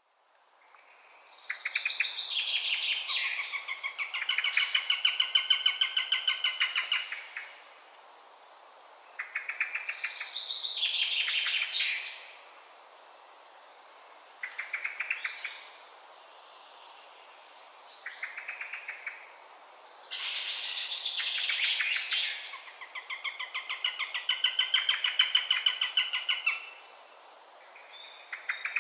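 Eurasian sparrowhawk calling: repeated bouts of rapid, chattering notes, each bout a few seconds long, with short pauses between them.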